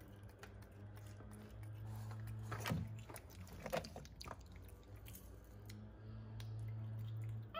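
Small clicks and knocks as a capuchin monkey rummages among plastic toys in a toy box, then chewing and biting as it eats a cashew, over a low steady hum.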